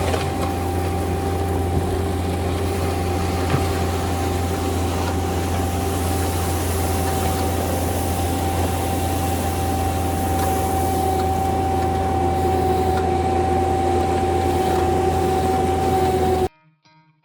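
Cat 265 skid steer's diesel engine running steadily under work, with a deep hum and a steady high whine. The sound cuts off suddenly near the end, and faint guitar music begins.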